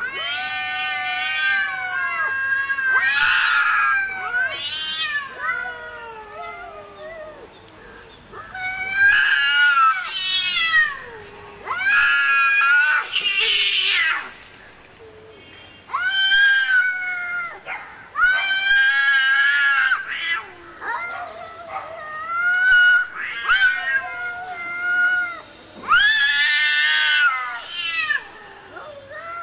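Aggressive domestic cats yowling and caterwauling: a string of drawn-out wailing calls, each a second or two long, rising and falling in pitch, with short gaps between them.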